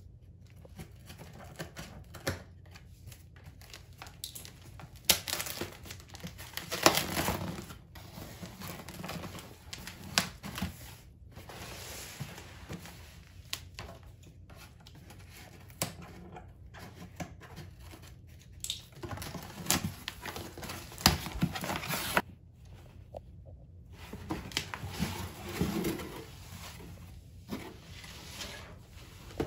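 Unboxing a corrugated cardboard shipping box: scissors slitting packing tape, the tape tearing and peeling off, and cardboard flaps crinkling, scraping and knocking as the box is opened and a shoebox is pulled out. Irregular rustles and sharp clicks, louder in a few bursts.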